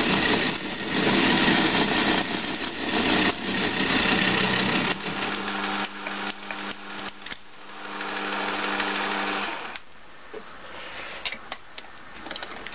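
JET JMD-1 mini milling machine's end mill cutting a cast iron blank: a harsh, grinding cutting noise for about five seconds. The cut then ends and the spindle runs on with a steady hum until it is switched off nearly ten seconds in. A few small clicks follow.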